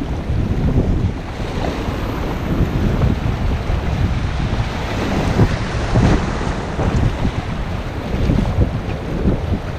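Wind buffeting a helmet-mounted camera's microphone over the rushing of river water around an inflatable kayak, with irregular gusts and a steady low rumble.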